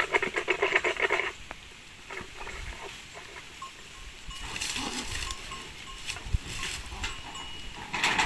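A farm animal calls for about the first second with a rapid pulsing quaver, then stops. After it come scattered rustles and crunches of dry bamboo leaves and litter underfoot and in the bamboo clump, busiest from about halfway through and again near the end.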